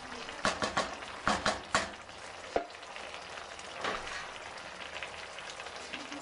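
A wooden spoon stirring a simmering enamel pot of chicken and vegetables, knocking against the pot several times in the first two seconds, with one more click a little later. A steady sizzle and bubbling from the pot runs underneath.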